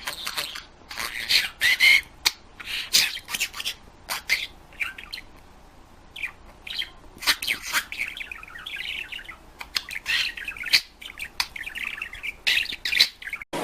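Pet parrot calling: a run of short squawks and chirps, with a longer chattering stretch about two-thirds of the way in.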